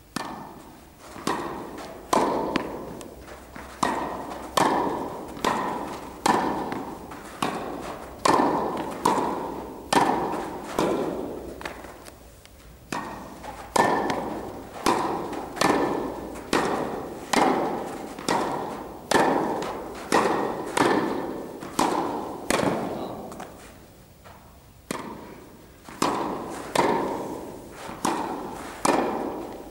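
Tennis balls hit back and forth in a volley drill: sharp pops of racket strings on the ball, about one or two a second, each ringing in the echo of an indoor tennis hall. The rally pauses briefly twice.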